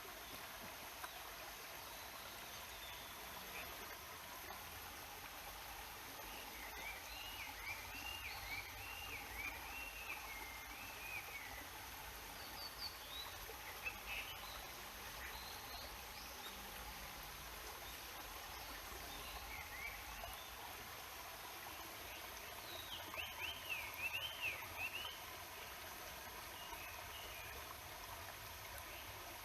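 Steady rushing of a mountain stream, with a songbird singing phrases of quick up-and-down notes about seven seconds in and again a little past twenty seconds.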